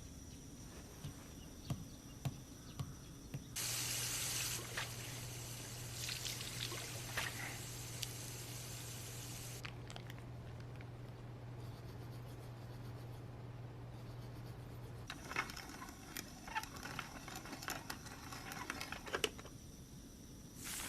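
Water running, starting suddenly a few seconds in and cutting off about ten seconds later, with a low steady hum while it runs; small clicks and knocks before and after.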